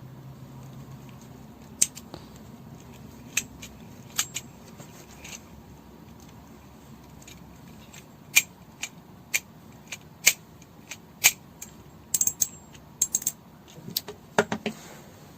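Small metal spinning reel being handled and worked, giving irregular sharp metallic clicks and taps, some in quick clusters near the end.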